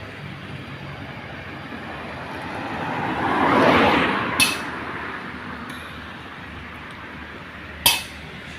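A road vehicle passes, its noise swelling and fading about three to four seconds in, over steady background noise. Two short sharp metallic clinks sound, one just after the pass and one near the end.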